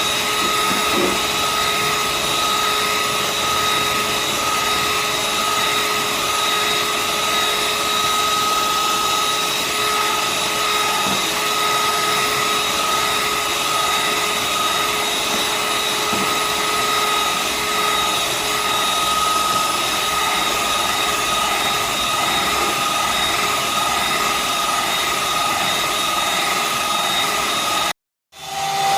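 Electric mixer running at a steady speed, beating egg whites and sugar into meringue, with a constant motor whine. It cuts out briefly near the end.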